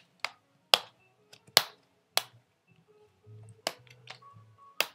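Plastic screen bezel of a Chromebook being pried off by hand, its retaining clips letting go in a series of sharp snaps, about six, unevenly spaced.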